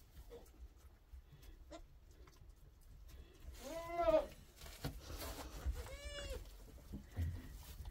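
Goats bleating: one call about four seconds in, then a higher-pitched call about six seconds in.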